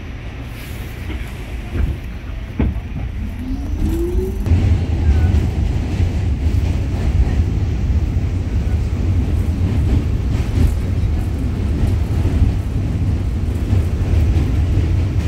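New York City subway train running, heard from inside the car: a steady low rumble of wheels on track, with a few sharp clacks in the first seconds and a short rising whine, after which the rumble grows louder about four seconds in and stays so.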